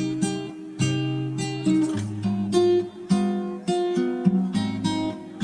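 Background music: an acoustic guitar strumming chords, a new chord every half second or so.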